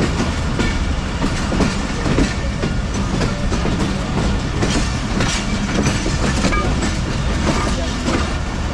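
Passenger train coaches running along the track, a steady low rumble with many rapid, irregular clicks and clatters from the wheels crossing rail joints and points.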